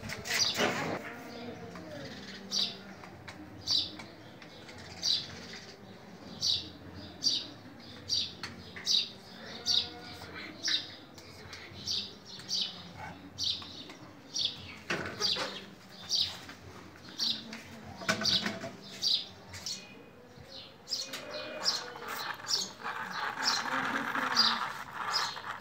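A small bird chirping over and over, one short high chirp a little under once a second. A louder rustling noise joins in the last few seconds.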